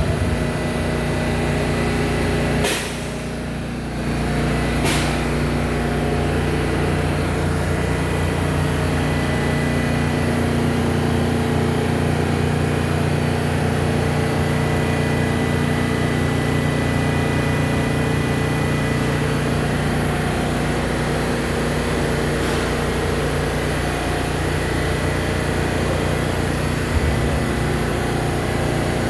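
An R142A subway train standing at the platform after pulling in, its onboard equipment humming steadily on several fixed tones. A sharp sound comes about three seconds in and another about five seconds in.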